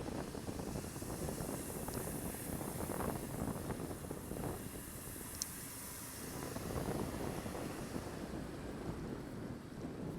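Wind buffeting the microphone of a bicycle-mounted camera while riding, over a steady low rumble of road noise, with one brief faint tick about five seconds in.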